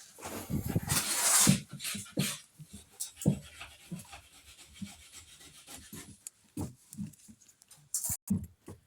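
Stir stick scraping and rubbing in a cup of pigmented gel coat as it is mixed: a loud stretch of scraping in the first second and a half, then fainter, irregular scrapes and light knocks.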